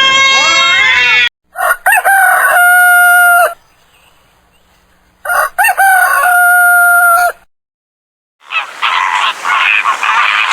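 Rooster crowing twice, each crow about two seconds long with a long held final note. A few seconds later, a flock's dense honking and chatter begins.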